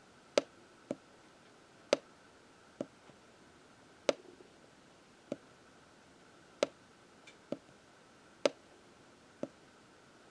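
Sharp clicks of a pen tapping down on the writing surface as Roman numerals are drawn stroke by stroke. There are about ten clicks, roughly one a second, some coming in quick pairs.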